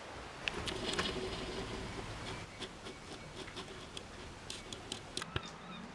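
Scattered light clicks and ticks at irregular intervals over a faint steady hum.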